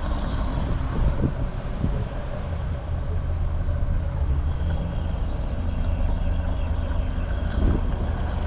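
Gasoline pouring at full flow from a gas pump nozzle held wide open into an SUV's filler neck, a steady rushing with no shut-off click: the fuel is no longer backing up the filler neck.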